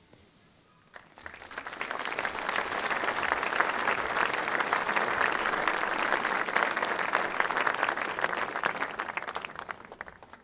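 Audience applauding. The applause starts about a second in, builds quickly to a steady level, and fades away near the end.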